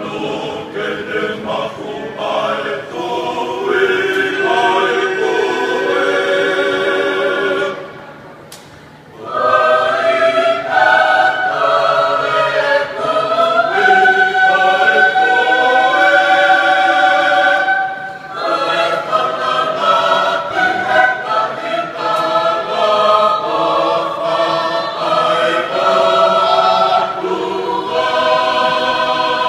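Tongan church choir of men and women singing unaccompanied in several parts. The singing breaks off briefly about eight seconds in and then goes on.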